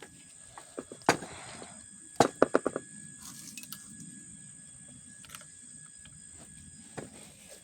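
Sharp clicks and knocks of metal chainsaw parts and tools being handled during assembly, with a quick run of about five clicks a little over two seconds in.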